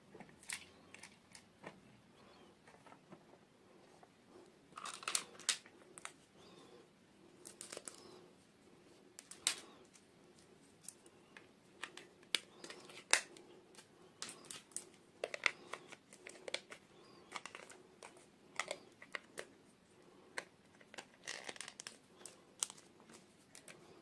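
Close handling of small plastic toy pieces and their packaging: scattered sharp clicks and taps with a few short crinkling rustles, the longest about five seconds in and again near the end.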